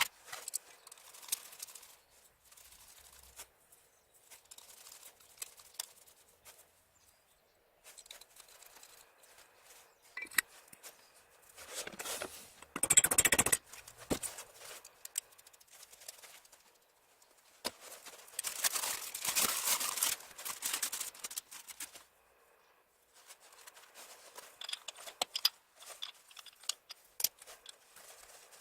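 Sped-up workshop handling sounds while pistons are fitted to an XS650 engine: scattered quick clicks, taps and clatter of tools and metal parts, with two louder noisy stretches about twelve and nineteen seconds in.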